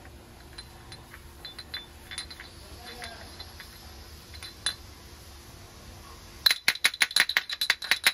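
Small metal items clinking against each other: a few scattered light clinks, then a quick, louder run of sharp clinks near the end.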